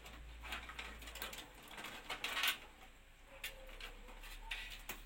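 Hands fitting cables and connectors inside a desktop PC case: scattered light clicks and rustles, the loudest about two and a half seconds in.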